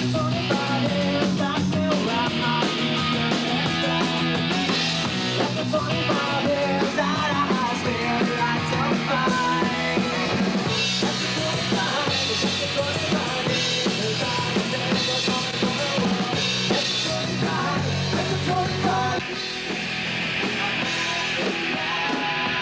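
Rock band music: a full drum kit with bass drum and snare driving under guitars and bass. About nineteen seconds in, the sound drops a little and shifts to a new section.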